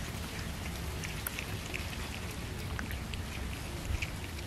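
Kittens chewing and tearing raw fish pieces from a steel plate: irregular wet smacking and clicking over a low steady background, with a slightly louder knock near the end.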